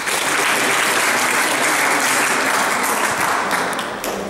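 Audience applauding, a steady patter of many hands clapping that begins to die away near the end.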